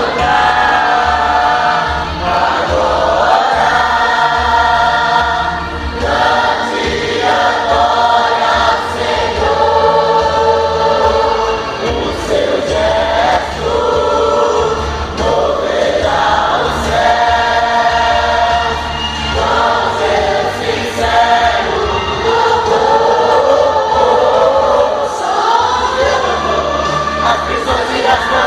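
A choir singing a gospel worship song with instrumental accompaniment.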